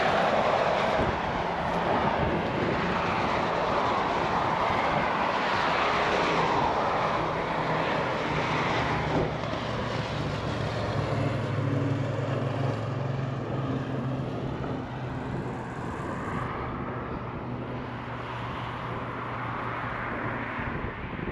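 Engine noise of vehicles passing on a mountain pass road: a steady drone with a slowly shifting pitch, gradually fading.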